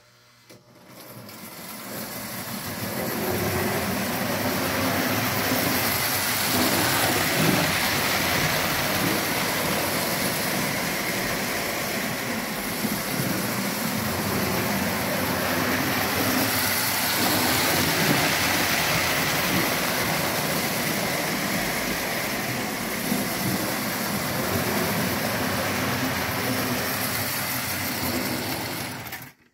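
Repaired model steam locomotive and its train running on metal track: a steady motor whir with wheels rumbling on the rails. It builds up over the first few seconds and stops abruptly near the end.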